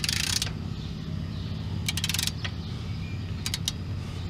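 A torque wrench's ratchet clicking in short fast runs, just after the start and again about two seconds in, with a few single clicks later. The wrench is tightening the spindle nut on a Ford F-150 front hub to preload the wheel bearing while the rotor is spun by hand. A steady low hum sits underneath.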